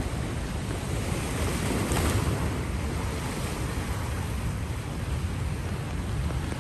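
Sea waves washing in against the shore, with wind buffeting the microphone as a low rumble. A wave surges slightly louder about two seconds in.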